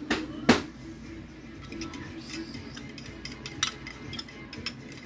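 A fork clicking against a ceramic bowl as eggs are whisked, in irregular quick taps, with one louder knock about half a second in.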